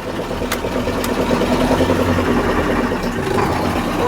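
KAMAZ 65225 truck's V8 diesel engine idling with an even, steady beat and no knock, running normally after repair.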